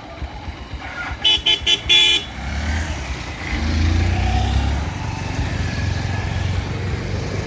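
A vehicle horn tooting four times in quick succession about a second in, followed by motorcycle engines running, swelling louder about halfway through as the bikes pull past.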